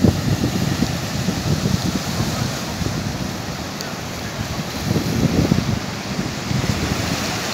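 Sea surf breaking and washing over a rocky shore, with wind buffeting the microphone in gusts, strongest at the start and again about five seconds in.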